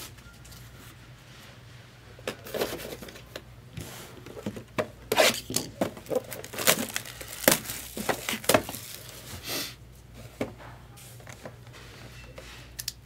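Foil trading-card pack wrappers being torn open and crinkled, a run of sharp, irregular rips and crackles from about two seconds in to about ten seconds in, with quieter handling noise around them.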